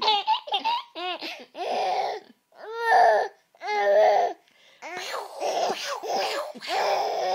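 A baby laughing in a run of short bursts of giggles, about one a second, running together near the end.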